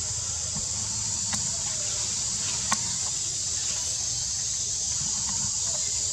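Steady high-pitched buzz of forest insects such as cicadas, with a low rumble beneath. Two short clicks, a faint one just over a second in and a sharper one near the middle.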